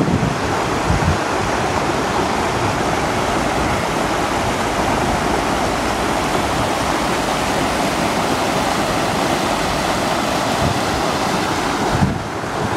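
Muddy floodwater of a swollen river (wadi) rushing over its gravel bed in a steady, loud, even rush.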